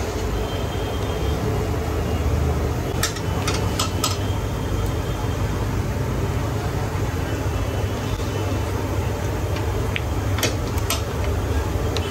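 Steady low rumble of street traffic and a busy kitchen, with a few sharp metal clicks of a long ladle striking a wide, shallow pan of simmering curry: a quick cluster a few seconds in and a couple more later on.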